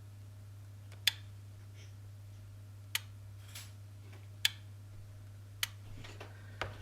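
Relay inside a Tenda smart plug clicking four times, a second or two apart, as the plug switches after its capacitor repair, over a steady low hum.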